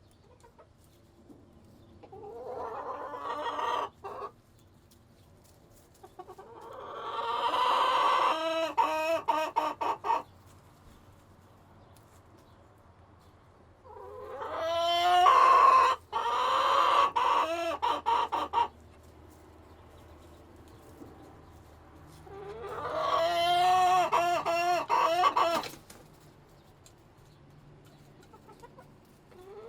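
Chickens in a coop, with four loud, drawn-out calls a few seconds apart. Each call swells up and then breaks into choppy notes, over a low background of the coop.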